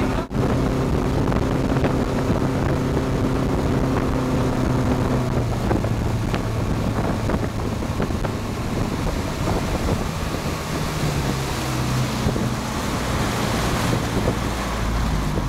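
Motorboat engine running steadily at speed, with wind buffeting the microphone and water rushing in the boat's wake.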